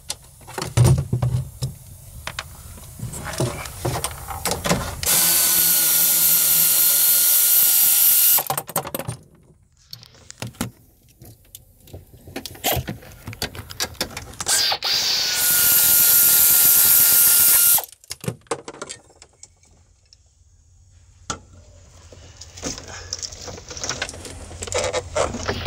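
Power drill running in two steady runs of about three seconds each, with clicks, clanks and rattles of tools and loose parts between them.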